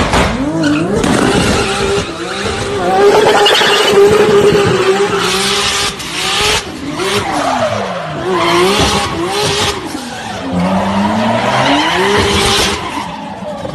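A Mk4 Toyota Supra doing donuts on concrete: its engine revs rise and fall again and again over the squeal of its spinning rear tyres.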